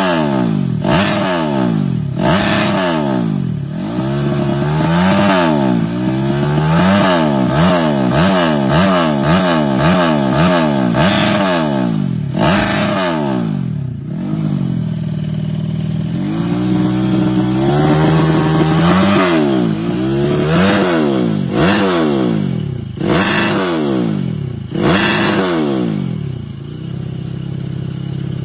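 Bored-up four-stroke motorcycle engine, Honda's KPH 125 cc, being blipped on the throttle over and over while it is set up. The engine speed rises and falls about once a second, with a few short holds, and it settles to a steadier idle near the end.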